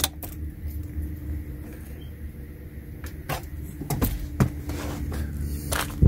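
A click from the 2012 Toyota Prius plug-in's headlight switch stalk being turned. After it comes a steady low hum with a faint steady tone, and a few scattered clicks and knocks.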